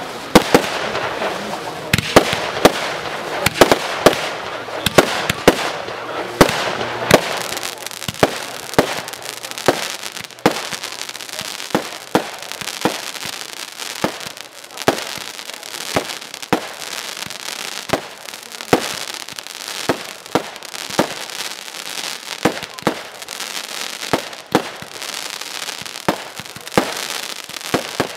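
A 'Crescendo' 1.3G consumer firework cake firing shot after shot, with a sharp bang about every second, over continuous crackling from the bursting stars.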